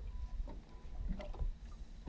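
Small waves lapping against the hull of an aluminium boat, with a few short slaps over a low rumble.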